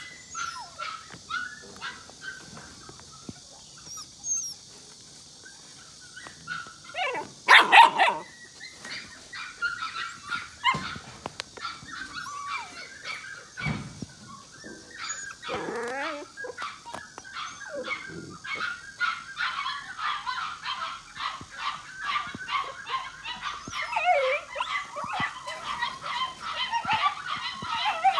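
Young Presa Canario dogs yipping, whining and barking in excitement while playing, with a sudden loud burst about eight seconds in and a quick, nearly continuous run of high yips and whines through the second half.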